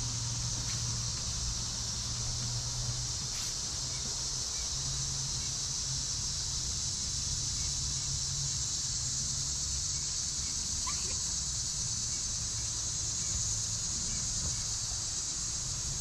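Steady high-pitched drone of a summer insect chorus, with a low steady hum underneath and a few faint bird chirps.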